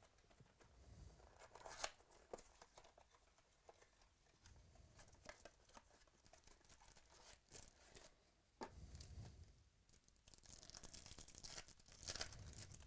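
Quiet paper and foil handling: a cardboard box of trading cards is pulled open, then a foil trading-card pack is torn open and crinkled. The sound is a run of short, sharp crackles and tears, with the densest tearing near the end.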